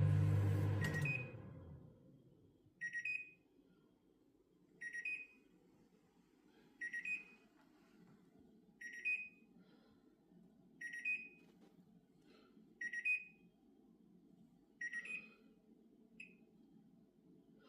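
Bosch microwave oven reminder beeping: a short, high double beep repeats about every two seconds and keeps going, the signal that does not stop on its own. A low hum fades out over the first two seconds, and near the end the last beep is cut short.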